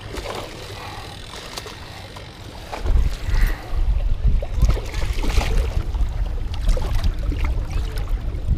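Low rumble of wind and handling noise on a body-mounted camera's microphone, much louder from about three seconds in. Scattered light clicks and small splashes come through as a hooked bass is reeled to the rocky bank and grabbed by hand.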